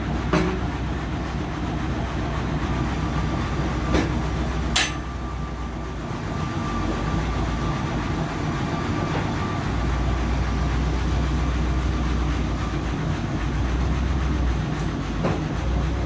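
Carpathian SM 110 manual band sawmill running, its 11 kW electric motor and band blade making a steady mechanical din. A few sharp knocks sound over it, two close together about four and five seconds in and one near the end.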